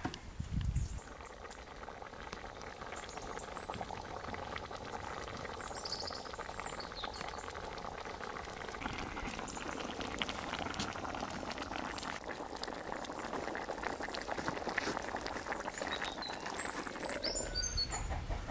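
A large pot of beef stew boiling: a steady bubbling full of small pops, with a few bird chirps about six seconds in and again near the end.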